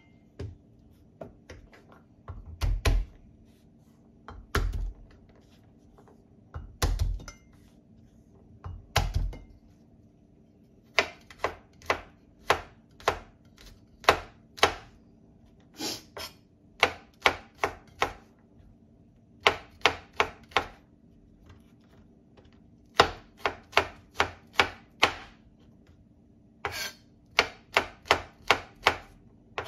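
Kitchen knife chopping garlic cloves on a wooden cutting board: first four heavier, deeper knocks about two seconds apart, then runs of quick, sharp chops at about two to three a second as the garlic is minced.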